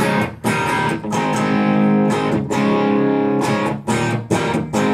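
Electric guitar chords played through an Idea Sound Product RAT-style distortion pedal set to its low-gain setting, a series of chords each struck sharply and left to ring.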